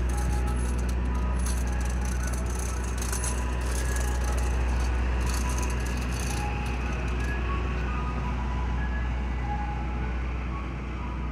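Mister Softee ice cream truck's engine running with a steady low hum as the truck drives slowly away down the street.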